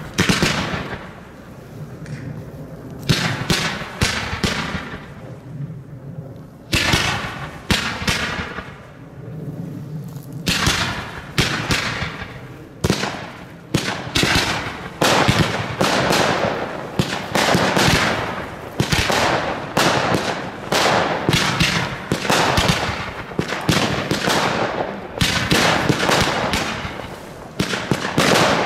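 Fireworks display heard close to the firing site: rockets and shells launching and bursting in a rapid, unbroken series of bangs and crackles, several often overlapping.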